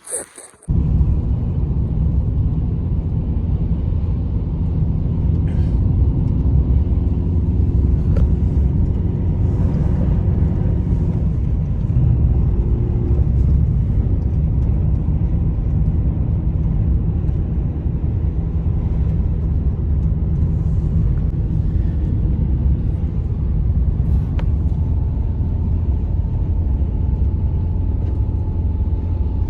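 Strong blizzard wind: a loud, steady low rumble that starts suddenly just under a second in.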